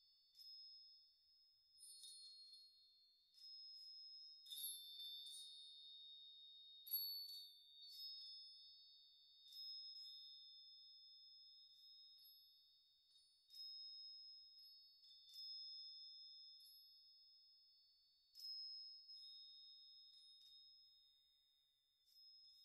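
Faint background music of high, bell-like notes, a new note or chord struck every second or two and left to ring slowly away.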